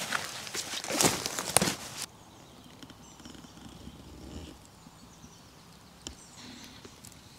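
Footsteps through undergrowth and a loaded rucksack being swung down onto the ground, with rustling and a few sharp knocks for about two seconds. The sound then drops suddenly to a faint outdoor background with a single small click.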